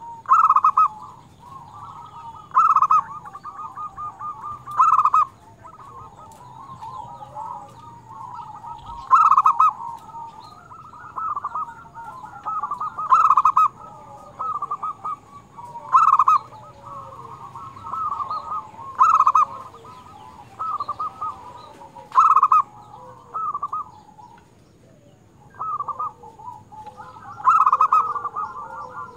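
Local-strain zebra dove (perkutut) singing its cooing song. Loud notes come every two to four seconds, with quick runs of short staccato notes between them, and there is a brief pause near the end.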